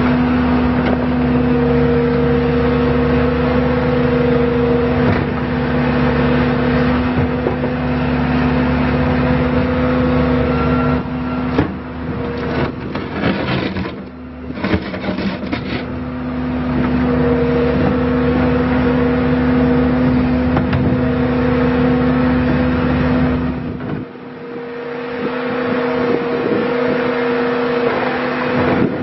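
Bobcat T650 tracked skid steer's four-cylinder diesel engine running with a steady drone. About halfway through it dips briefly amid a run of clattering knocks. Near the end the deep low rumble drops away while the engine keeps running.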